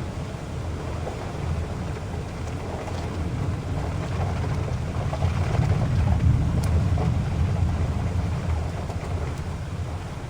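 Heavy rain falling steadily, with a low rolling rumble of thunder that swells in the middle and fades away toward the end.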